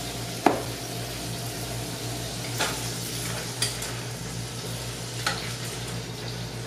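Broccoli sizzling in a stainless steel pot as it is stirred with a spatula. The spatula knocks against the pot about four times, the loudest about half a second in, over a steady low hum.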